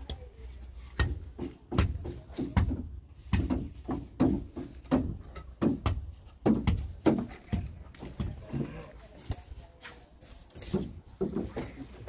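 Wind buffeting the microphone as a steady low rumble, with irregular knocks and taps, two or three a second.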